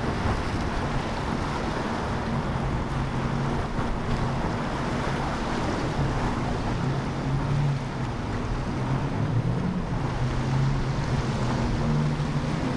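Twin outboard engines on a Velocity powerboat running hard through rough inlet chop. Their low drone rises and falls in pitch as the boat rides the waves, over the rush of spray, surf and wind.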